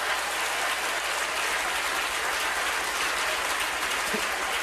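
Comedy club audience applauding steadily in response to a joke.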